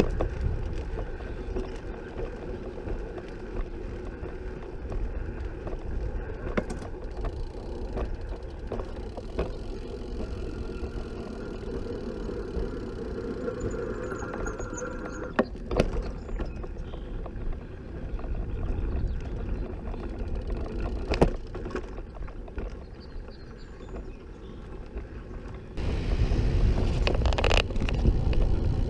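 Outdoor ride noise from a recumbent trike rolling along a paved path beside a road with car traffic: a steady low rumble with a few sharp clicks. Near the end a louder low rumble sets in suddenly.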